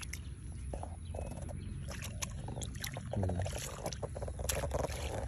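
Hands splashing and squelching in shallow muddy water among weeds while groping for fish, with irregular short sloshes and wet slaps.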